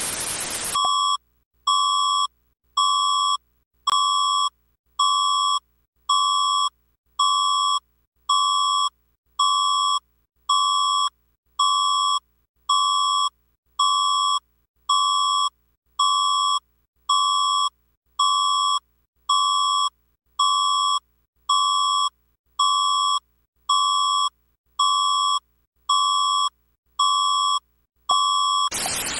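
Static hiss that cuts off under a second in, then a single-pitched electronic beep near 1 kHz repeating about once a second, some two dozen times, before the hiss returns near the end.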